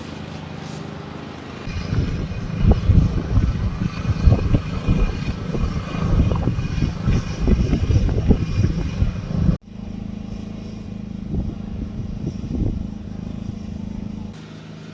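Wind buffeting the microphone in loud, irregular gusts over a steady low engine hum. The gusting stops at a sharp cut about ten seconds in, leaving only the hum.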